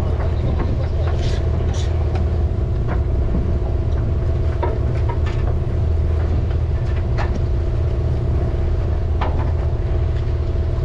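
A party fishing boat's engine running steadily, a low drone with a constant hum over it, and a few scattered short clicks and knocks on top.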